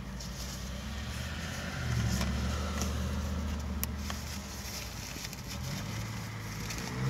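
A car engine idling with a steady low hum that grows louder about two seconds in, with a few light clicks and paper rustles over it.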